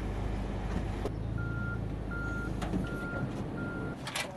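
Forklift's reversing alarm beeping four times, evenly spaced and at one steady high pitch, over the low steady running of its engine: the forklift is backing up.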